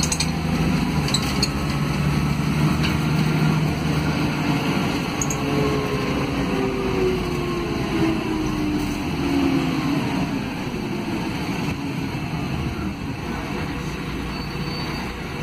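City bus drivetrain heard from inside the cabin: the diesel engine and ZF Ecomat automatic transmission running in fourth gear with the lockup clutch engaged, then easing off. A whine falls steadily in pitch through the middle as the bus slows, typical of Ecomat gearboxes, and by near the end the box is back in first gear on the torque converter.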